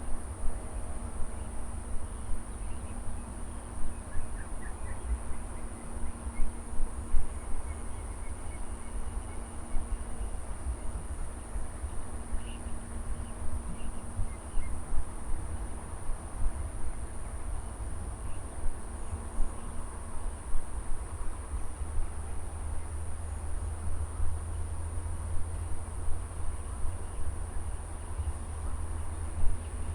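Steady, high-pitched chorus of crickets and other insects trilling without a break, over a low, uneven rumble, with a few faint bird chirps in the first half.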